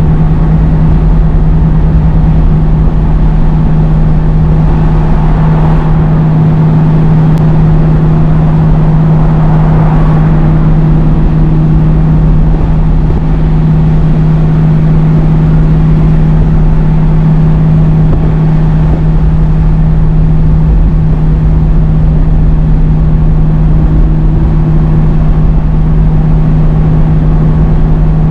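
Scania G500 truck's diesel engine running with a steady, loud drone in seventh gear, holding a 56-tonne truck-and-dog back on a steep downhill without the foot brakes, with road and wind noise underneath.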